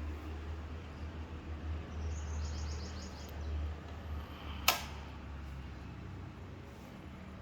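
Light bulb breaking: one sharp pop about four and a half seconds in, over a steady low rumble.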